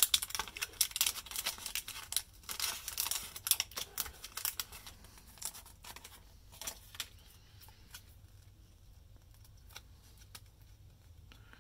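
A small clear plastic bag being torn open and handled: quick crinkling, tearing and rustling noises with little clicks, thick at first and dying away after about seven seconds.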